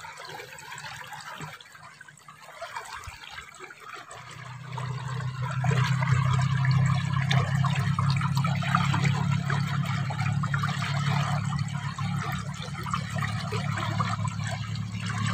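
Water trickling and flowing along a small concrete irrigation ditch. About four to five seconds in, a steady low hum joins it and stays, becoming the loudest sound.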